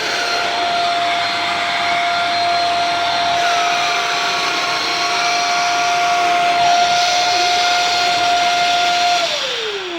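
Shark Rocket TruePet vacuum cleaner running with a steady high whine over its rushing air. About nine seconds in it is switched off and the whine falls away as the motor spins down.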